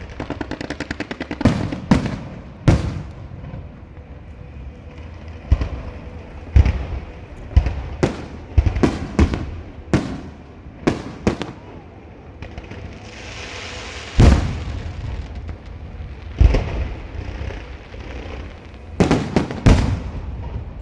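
Fireworks and firecrackers going off: a rapid string of crackling pops in the first second, then a long series of loud, irregularly spaced bangs. About fourteen seconds in, a hiss ends in a heavy boom.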